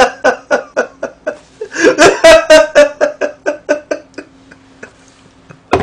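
A man laughing in two bouts of rhythmic "ha-ha-ha" pulses, each starting loud and trailing off. A single sharp knock comes near the end.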